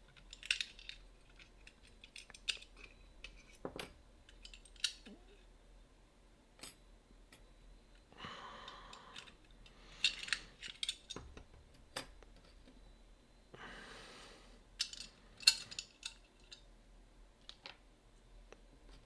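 Small metal lock parts (steel levers, spacers and bolt of a lever deadbolt) clicking and clinking irregularly as they are handled, with two brief scraping or rustling sounds about a second long, one partway through and one near two-thirds of the way in.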